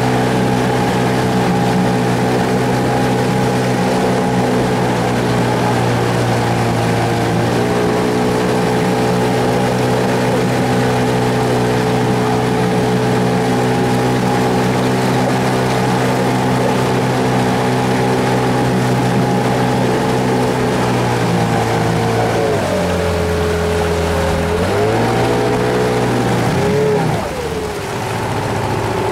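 Mercury 8 hp outboard motor running steadily while pushing the boat along. Its pitch drops as it is throttled back a little over 20 seconds in, rises again a few seconds later, then wavers near the end.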